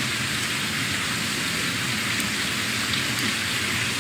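Steady, even hiss of background noise under a pause in speech, with no distinct events.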